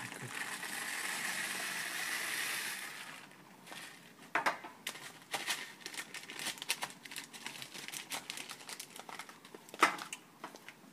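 Dry loose tea leaves pouring from a paper bag into a folded paper scoop, a steady rustling hiss for about three seconds. Then comes irregular crinkling and crackling of the stiff paper as it is handled, with one sharper crack near the end.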